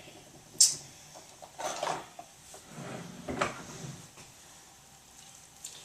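Kitchen things being handled and shifted on a counter: a sharp clack about half a second in, then two short scraping rustles, and a faint click near the end.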